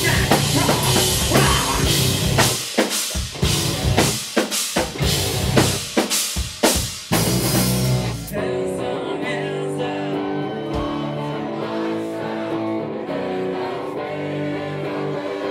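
Live rock band playing loud, with drums and electric guitars. About eight seconds in, the drums and cymbals stop and the guitars play on alone in held, ringing notes.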